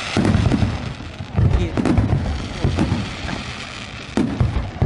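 Fireworks going off: a run of deep booms spaced roughly half a second to a second and a half apart, with sharp cracks and crackling between them.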